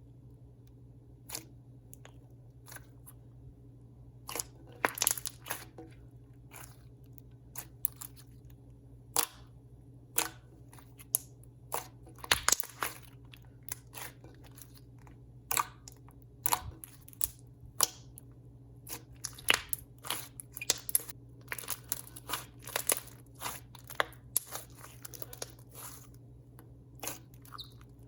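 Thick clay-and-slime mix being poked and squeezed by hand, giving irregular sharp bubble pops and clicks that come thicker in the second half.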